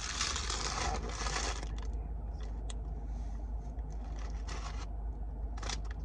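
Rustling and scraping of takeout food packaging. The longest stretch comes in the first second and a half, followed by a few short bursts, over a low steady hum.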